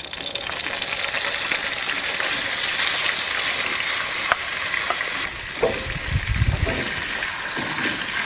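Diced bacon sizzling in hot oil in a pan. The sizzle swells as the bacon goes in, with a few light knocks and scrapes of the wooden spatula and bowl against the pan.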